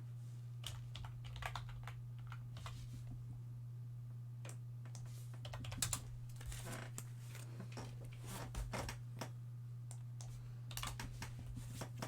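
Typing on a computer keyboard in irregular bursts of keystrokes, over a steady low hum.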